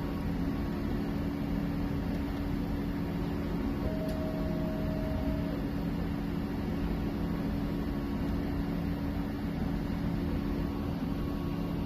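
CreatBot PEEK-300 3D printer running a print: a steady fan-like hum with the whine of its stepper motors, the tones shifting and breaking off briefly as the print head changes moves.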